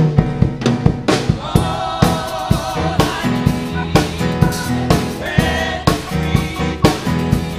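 Gospel praise singers singing with a live band, drums keeping a steady beat under sustained bass notes. The sung melody comes in about a second in.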